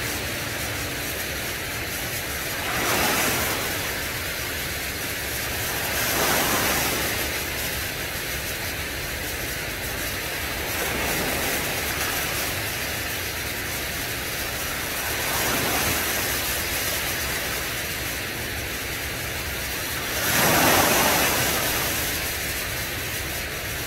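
Small waves of shallow sea surf washing in and breaking: a steady rush of water that swells every few seconds.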